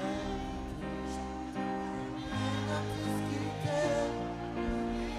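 Haitian konpa band playing live: an instrumental passage of held chords over a steady bass line, with no lead vocal.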